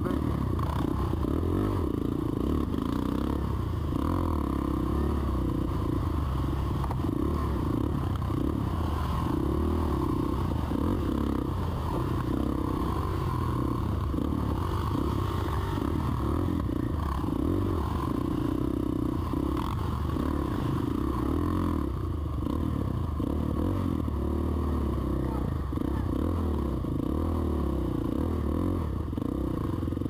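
Sport ATV engine running at trail-riding speed, its revs rising and falling continually.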